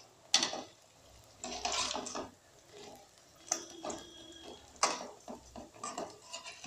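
A metal slotted frying ladle clinking and scraping against the pan as it turns pakodas in hot oil. There is a sharp knock about half a second in and another near five seconds, with a longer scrape in between and the oil sizzling faintly underneath.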